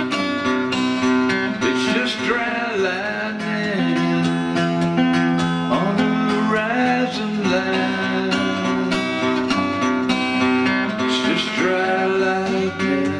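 Seagull acoustic guitar strummed steadily. A man's voice sings over it in three phrases that rise and fall, about two seconds in, midway, and near the end.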